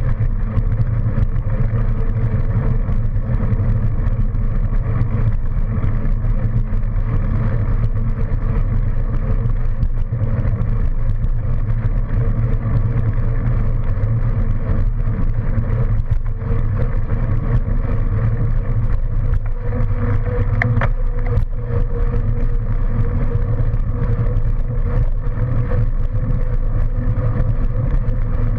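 Steady, loud low rumble of wind and road noise on a camera mounted on a moving bicycle, with road traffic running alongside.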